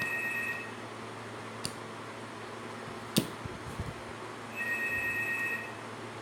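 A steady two-note electronic tone, about a second long, sounds at the start and again about five seconds later. Between them come a couple of sharp clicks, over steady background hiss.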